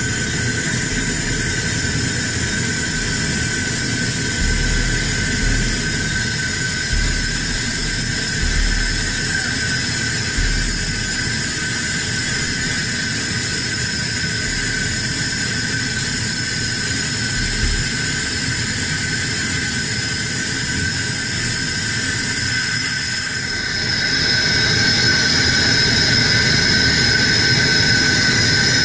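Air hissing through the valves of a hyperbaric decompression chamber: a loud, steady rush with high whistling tones, which gets louder with a brighter whistle about 23 seconds in.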